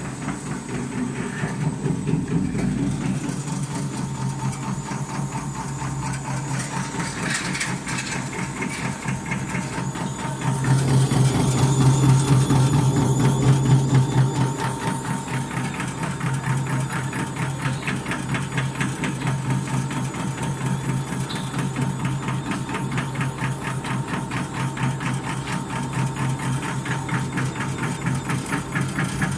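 Industrial dicing machine cutting dried prunes into cubes: a fast, even mechanical clatter from the cutter over a steady motor hum. It gets louder for a few seconds about a third of the way in.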